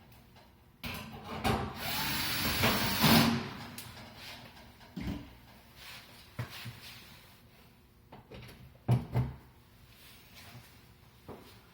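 Power screwdriver running for about two and a half seconds near the start, driving screws as the electric range's covers go back on, followed by scattered clicks and knocks of parts being handled.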